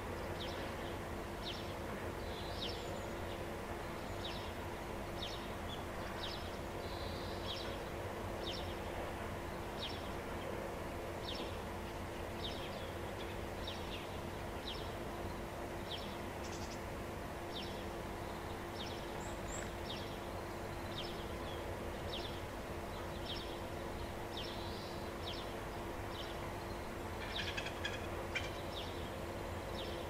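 A small bird calling repeatedly, a short high note about once a second, over a steady background hum and noise. Near the end a brief burst of busier chirping.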